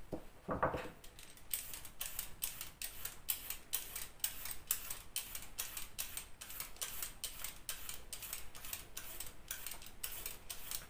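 Vegetable peeler scraping down a raw carrot in quick repeated strokes, about three a second, with a dull knock just under a second in.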